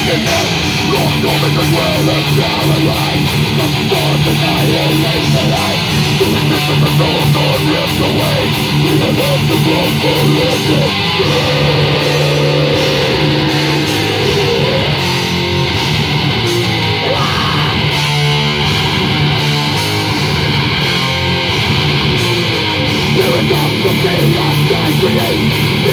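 A live heavy metal band playing loudly: distorted electric guitars, bass guitar and drums.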